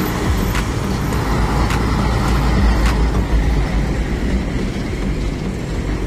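Trucks passing close by on a wet road: a steady deep diesel rumble with tyre hiss over it.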